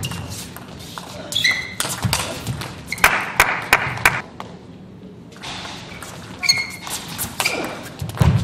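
Table tennis rally: the celluloid ball clicking off rackets and table in quick succession, with a few short squeaks from the players' shoes on the court floor.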